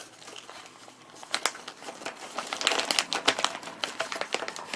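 Handling noise as small airgun slug samples are picked up and shown: irregular crinkling with scattered light clicks, busiest in the second half.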